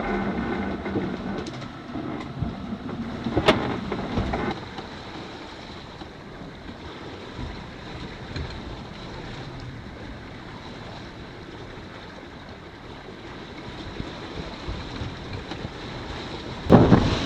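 Wind and sea noise aboard a sailboat under way in open ocean, with wind buffeting the microphone. A sharp knock comes about three and a half seconds in, and a sudden louder rush of wind and water near the end.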